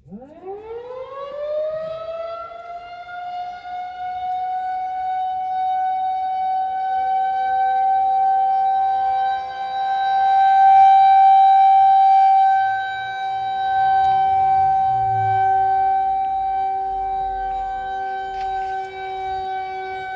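Federal Signal 2001-130 rotating outdoor warning siren starting up from silence during a test: its wail winds up quickly in pitch over about two seconds, then holds a steady tone. Its loudness swells and fades as the head turns, loudest around the middle.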